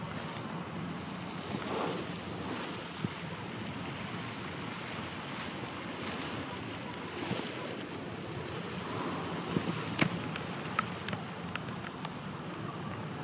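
Steady wind rushing over the microphone, with a few short sharp clicks, the loudest about ten seconds in.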